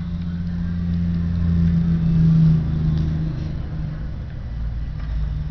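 A low, steady engine-like hum that swells to its loudest about two and a half seconds in, then eases off.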